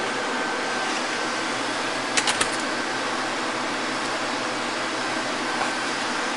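Steady rushing hiss of building ventilation, with a faint high tone running through it and three quick clicks a little over two seconds in.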